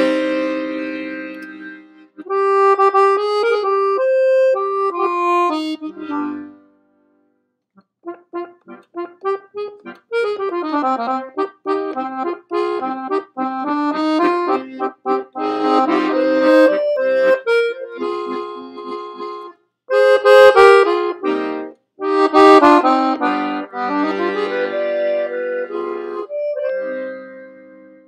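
1960s Scandalli Super Six piano accordion playing an Italian waltz melody with bass accompaniment. The music stops for about a second and a half some six seconds in, then comes back with quick staccato notes and fast runs, and dies away near the end.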